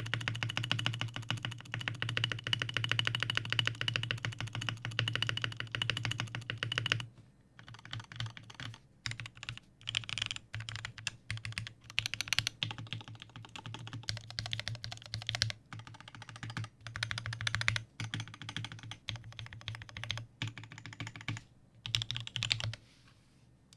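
Typing on a custom 60% mechanical keyboard with lubed and filmed Durock L4 Clear Purple linear switches in a top-mounted steel plate, with pudding keycaps. A fast, unbroken run of keystrokes for about seven seconds, then shorter bursts of typing with brief pauses between them, stopping near the end.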